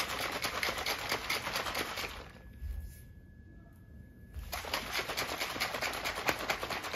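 Protein shaker bottle with cold water and whey powder shaken hard: a fast, continuous clatter of the liquid and powder slapping inside. The shaking breaks off for about two seconds midway, then starts again.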